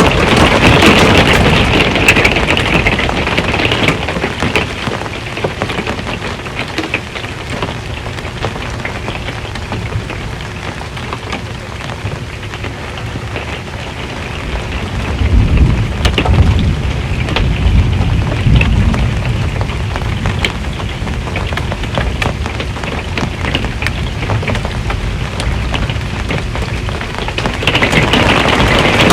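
Rain drumming on an RV's metal roof, heaviest in the first few seconds. About halfway through, a low rumble of thunder swells for a few seconds.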